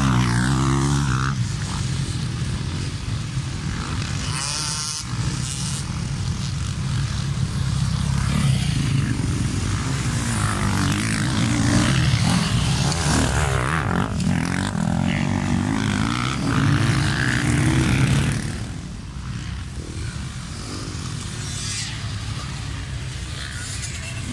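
Several motocross dirt bikes revving hard over a dirt track, their engine pitch rising and falling as they accelerate and shift. The sound is loudest around the middle as two bikes pass close by, and it drops back somewhat near the end.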